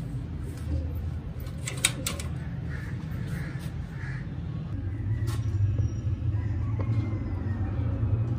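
Sharp metal clicks about two seconds in, and another a few seconds later, from the sliding bolt latch and wire-mesh door of a pigeon loft box. A steady low rumble underneath, and several short bird calls in a row from about two and a half to four seconds in.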